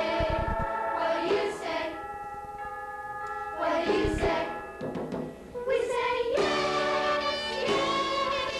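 Youth choir singing a song with instrumental accompaniment, with two low thuds, one near the start and one about halfway through.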